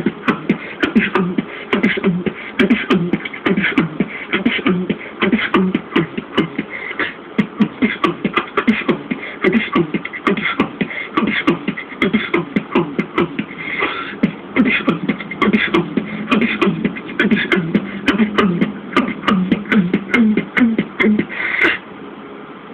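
Beatboxing with a hand cupped over the mouth: a fast, unbroken run of sharp clicks and drum-like hits over a low hum. It stops abruptly just before the end.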